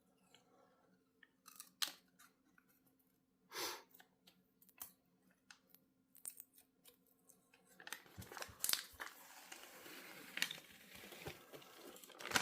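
Protective plastic film being peeled off an acrylic shelf panel: scattered small clicks and handling noises, then from about eight seconds in a continuous crackling as the film pulls away.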